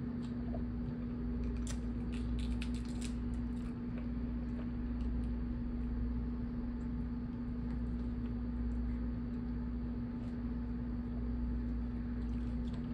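Hands picking apart steamed blue crabs: small cracks and clicks of shell breaking, with a quick run of them about two to three seconds in, over a steady low hum.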